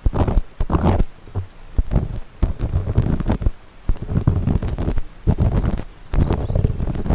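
Ear pick scraping inside a binaural dummy-head microphone's ear in gritty, close-up strokes, roughly one a second, with small clicks between them.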